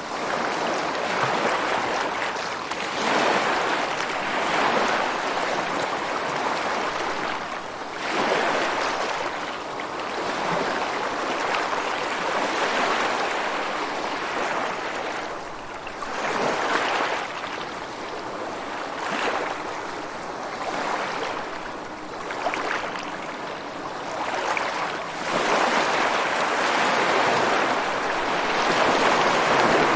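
Ocean surf washing onto a shore: a steady hiss of moving water that swells and eases every few seconds, with a longer, louder swell near the end.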